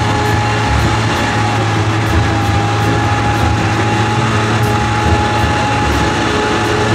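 Tiger 1 tank driving slowly on tarmac: its Maybach V12 petrol engine running with a steady low drone, a steady high whine above it, and the steel tracks clattering.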